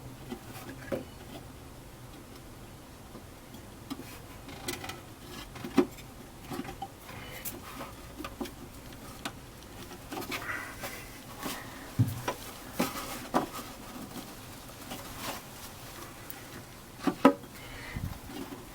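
Hand work refitting a shortened rubber brake reservoir hose onto its fittings: scattered light clicks and knocks of parts being handled, with some rubbing and scraping about ten seconds in and two sharp knocks near the end.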